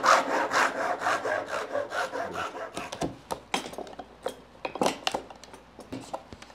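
Hand saw cutting across a wooden muntin in quick even strokes, about three a second, that stop about two and a half seconds in. A few sharp scraping cuts follow as a chisel pares the sawn notch.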